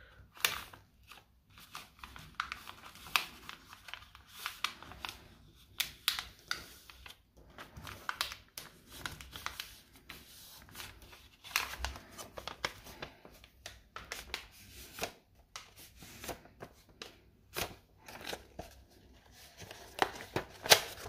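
A4 paper rustling and crackling in many short, irregular bursts as it is folded and creased by hand.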